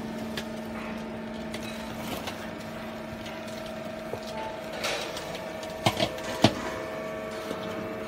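Small vertical hydraulic baler running, its electric motor and hydraulic pump giving a steady hum while the press plate compresses cardboard. The lowest part of the hum drops out about halfway through, and a few sharp clicks or knocks come about six seconds in.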